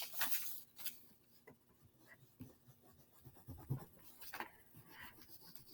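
Faint, scattered scratching strokes of drawing on paper.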